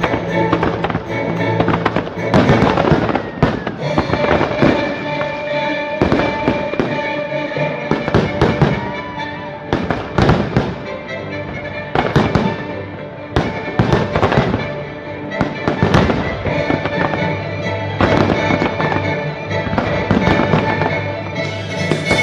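Fireworks display with shells bursting in quick, irregular succession, booms and crackles throughout, over the show's music soundtrack.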